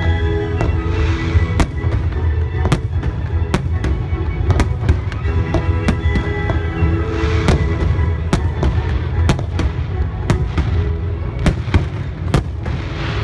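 Fireworks display: aerial shells and ground fountains going off in a rapid run of sharp bangs and crackles, about two a second, with music playing underneath.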